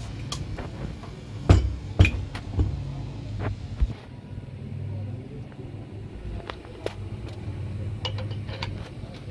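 Metal alternator parts and hand tools knocking and clinking against each other and the steel workbench as the alternator is put back together: a run of sharp knocks in the first few seconds, then lighter scattered clicks. A steady low hum runs underneath.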